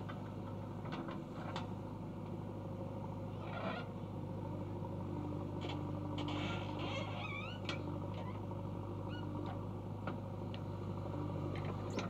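JCB backhoe loader's diesel engine running steadily as the backhoe digs mud and swings round to load it into a tractor trolley, with scattered short knocks from the bucket and arm.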